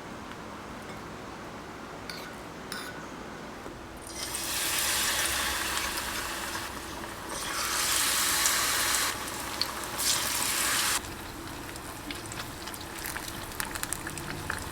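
Water running from a tap, starting about four seconds in, swelling twice and shutting off suddenly several seconds later; a few light clicks follow.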